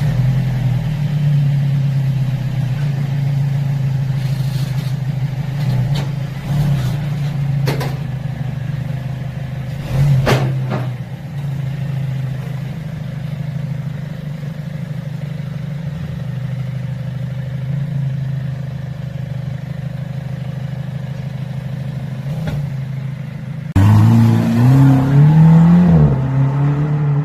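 Mercedes-Benz SLC200's turbocharged four-cylinder running through an aftermarket sport resonator exhaust: a steady low drone, with a few short clatters along the way. Near the end the engine revs up and the car pulls away, its exhaust note rising and falling.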